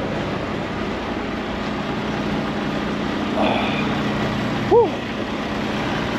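Heavy diesel truck engine idling with a steady hum. A short rising-then-falling tone stands out near the end.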